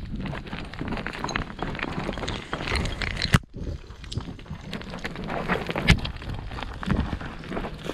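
Footsteps scuffing and crunching quickly and unevenly down a steep, dry dirt and stony trail, with a sharp knock about three and a half seconds in.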